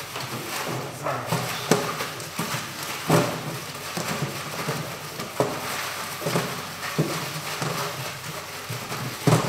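Paper lottery slips being stirred by hand inside a transparent lottery box: a continuous rustle broken by irregular knocks, the loudest near the end.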